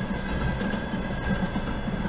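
Freight train of loaded flatcars rolling past: a steady noise of steel wheels running on the rails, strongest at the low end.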